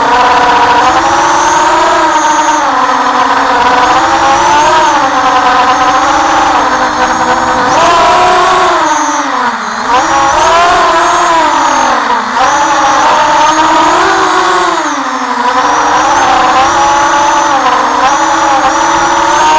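FPV quadcopter's brushless motors whining, the pitch swooping up and down with the throttle and dropping sharply twice as the throttle is chopped.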